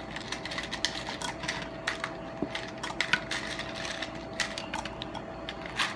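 Irregular light clicks and rattles of small plastic craft jewels being handled and dropped into slime, with one sharper click near the end. A faint steady hum runs underneath.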